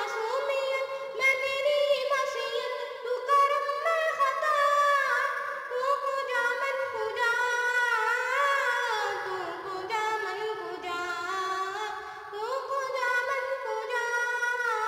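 A young boy singing a naat solo with no instruments, his high voice holding long notes and sliding between them.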